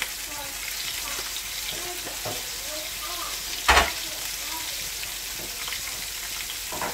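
Crumb-coated chicken wingettes deep-frying in a pan of hot oil, a steady sizzle, with one sharp, loud pop about halfway through.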